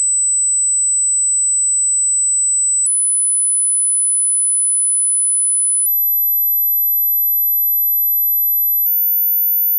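Hearing-test pure sine tone, loud and steady, stepping up in pitch about every three seconds: about 8 kHz at the start, then about 10 kHz, 12 kHz and, near the end, 14 kHz.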